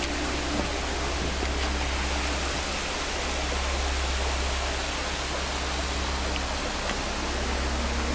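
Steady rushing noise of water, even and unbroken throughout, most likely rain falling.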